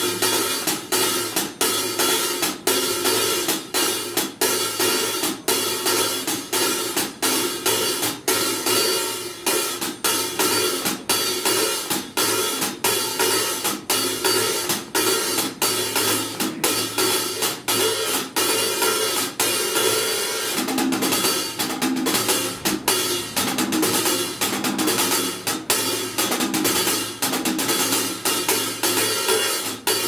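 Solo hi-hat played with drumsticks: a quick, steady, unbroken run of sharp stick strokes on the cymbals, with the tone shifting about two-thirds of the way through.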